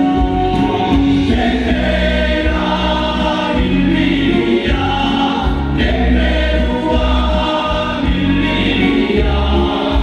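Amplified stage music: a group of voices singing together over instrumental accompaniment with a strong bass.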